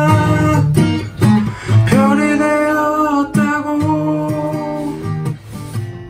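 Acoustic guitar playing the closing strummed chords of a song, the notes ringing on and dying away toward the end.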